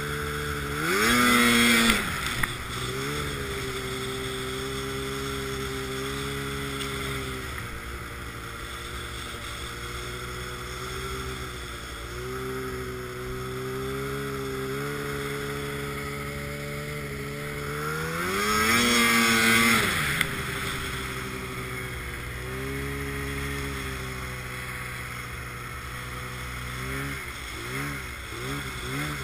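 Arctic Cat M1000 snowmobile's two-stroke twin engine running at a steady pace, revving up hard twice: about a second in and again about two-thirds of the way through. Near the end the revs rise and fall in quick wavers.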